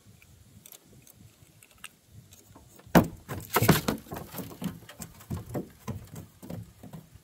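Close handling noise from hands working fishing tackle and a bait bucket: a sharp knock about three seconds in, then a busy run of rustles, scrapes and clicks.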